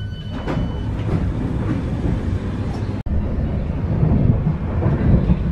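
Commuter train running, heard from inside the carriage: a steady low rumble from the running gear. The sound drops out for an instant about three seconds in, then carries on.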